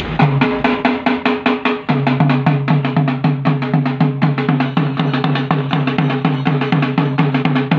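Rhythmic drumming: fast, even strokes, about four a second, on a low-tuned drum whose pitched boom dips after each hit. It breaks off sharply at the end.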